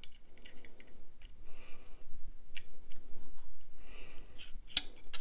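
Hands handling a fixed-blade knife while refitting its handle scale onto the tang: light rustling and small clicks, with two sharper clicks near the end.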